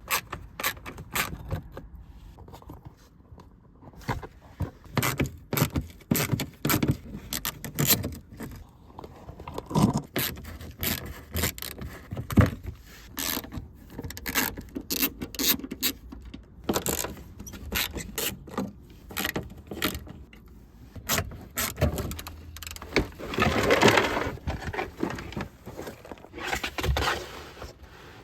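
Irregular metallic clinks, clicks and knocks of hand tools and parts being handled, with a longer scraping rustle about two-thirds of the way through.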